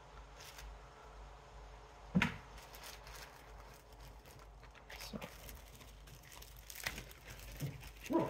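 Quiet room hum with a few scattered short clicks and knocks from handling objects on a workbench, the loudest about two seconds in.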